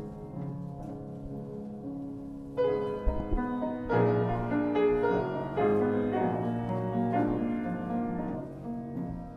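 Piano playing a slow classical-style piece, with a louder, fuller passage of struck chords beginning a few seconds in.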